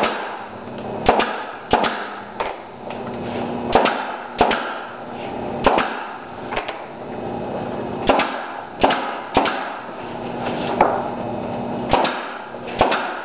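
Pneumatic nail gun firing into wood, a string of sharp shots spaced unevenly about half a second to a second and a half apart, with a faint steady low hum underneath.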